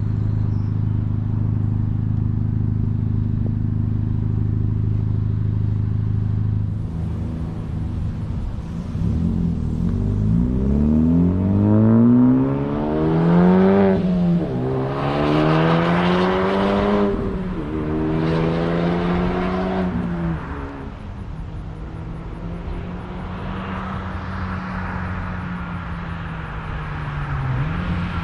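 2020 Honda Civic Type R FK8's turbocharged 2.0-litre four-cylinder through a muffler-and-resonator-delete exhaust: a steady engine note, then a hard acceleration with the revs climbing through three gears, two quick upshifts dropping the pitch in between, before it settles back to a steady cruise.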